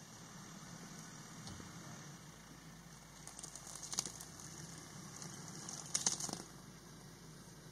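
Faint crackling rustles in two short clusters, about three and a half seconds in and again about six seconds in, the second the louder, over a steady low hiss.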